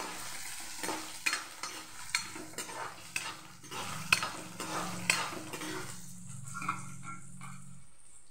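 Steel spatula scraping and stirring whole spices and dried red chillies frying in a little oil in a metal kadai, about two strokes a second, stopping about six seconds in. The spices are being lightly roasted, not burnt, before they are ground into masala.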